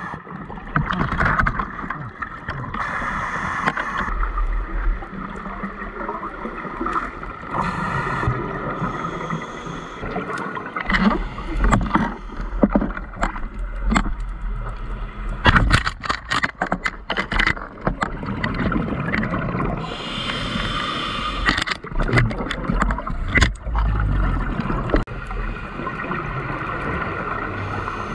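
Muffled underwater sound from a camera in its housing: a scuba diver's regulator breathing and exhaled bubbles. Scattered sharp clicks and knocks come in the middle.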